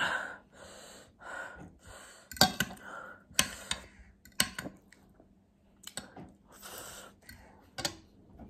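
Metal spoon and fork clicking and scraping on a ceramic plate as momo dumplings are cut, with several sharp clinks, between short hissing breaths from the heat of the spicy food.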